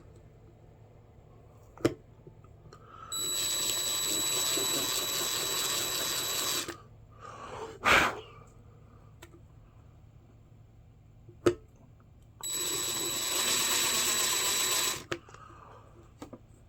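Small power drill running twice, about three and a half seconds and then about two and a half seconds, with a high steady whine, drilling out spots in wooden knife handle scales so they fit flush around the pins. A few short clicks and a knock fall between the runs.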